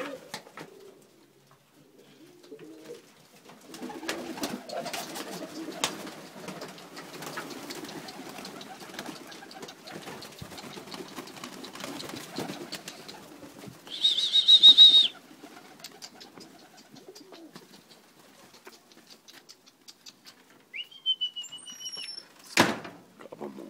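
Flock of domestic pigeons (Macedonian Dunek) cooing and shuffling, with wings flapping as the birds crowd together. About 14 s in there is a loud, high, wavering whistle-like call of about a second, which is the loudest sound here, and there is a sharp knock near the end.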